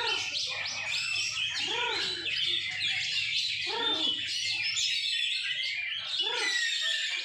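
Several caged Oriental magpie-robins (kacer) singing at once: a dense tangle of high chirps, whistles and trills, with lower rising-and-falling notes recurring every second or two.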